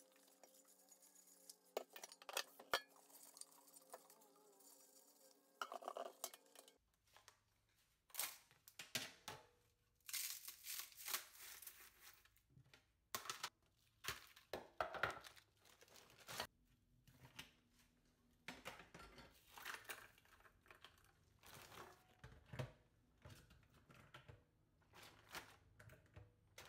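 Quiet handling sounds at a stainless-steel kitchen sink in short scattered bursts: bottles and lids knocking and clinking as they are washed, and a plastic zip bag crinkling as it is handled.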